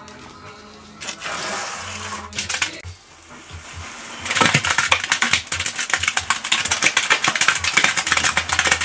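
Wet cement pouring from a bucket into a latex mould: a brief hissing slide of the mix about a second in, then from about halfway a dense stream of fast gritty clicks and rattling as the mix pours in.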